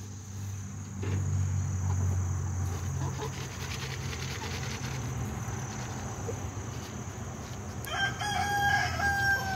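A rooster crowing once, a held call near the end, over a low steady rumble.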